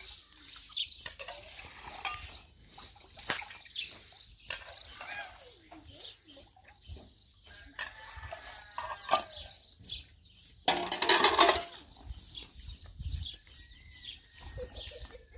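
Birds chirping over and over in short, high, evenly spaced calls. A little over ten seconds in comes a brief loud rush of noise.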